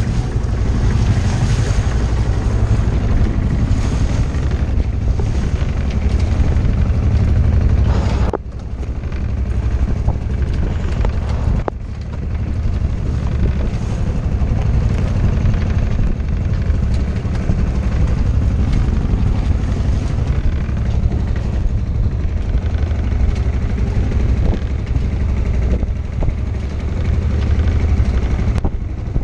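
Wind buffeting the microphone over the rush and splash of the bow wave of a small sailboat under way. The sound drops abruptly about eight seconds in, then the steady low wind rumble carries on.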